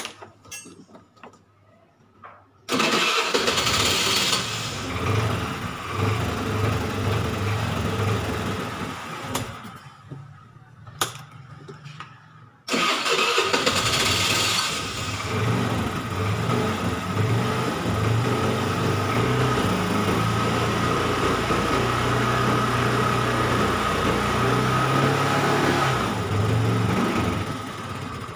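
A 100cc scooter engine is started on its electric starter and runs at idle, powered by a newly fitted 12 V flooded lead-acid battery: the battery is cranking it fine. The engine catches about three seconds in and stops after about seven seconds. It is started again about four seconds later and keeps running steadily.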